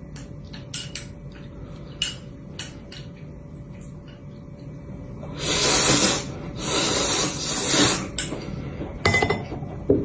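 Chopsticks clicking against a porcelain dipping bowl, then loud slurping of buckwheat soba noodles in two long pulls from about five seconds in, with a short slurp near the end.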